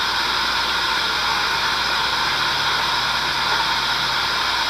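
Steady, even hiss with a low hum underneath, unchanging throughout: the background noise of an old, worn film soundtrack.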